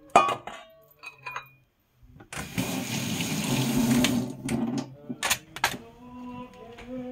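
Kitchen tap water running for about two seconds, starting and stopping abruptly, with a few sharp clicks of kitchenware after it. Near the end a woman hums a steady note.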